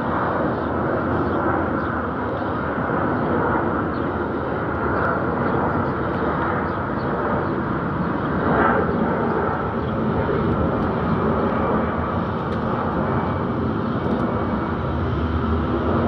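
Steady, even rumble of an airliner flying high overhead.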